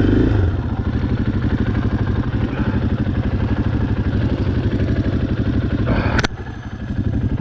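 Off-road vehicle engine running steadily with a fast, even pulse. About six seconds in there is a sharp knock, and the engine drops to a quieter, lower note for a moment.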